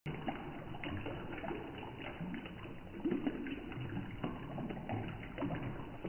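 Water from a small homemade fountain falling in thin streams from a plastic-cup tower and trickling and splashing into a shallow plastic tub of pebbles, with a steady patter of drips.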